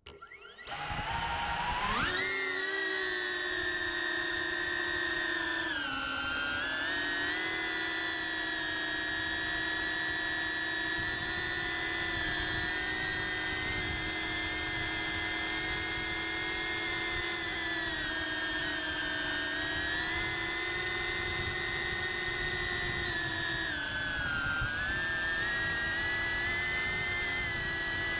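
Cinewhoop FPV drone's motors whining, rising sharply in pitch about two seconds in as the throttle comes up, then holding a steady high whine with brief dips in pitch where the throttle is eased off.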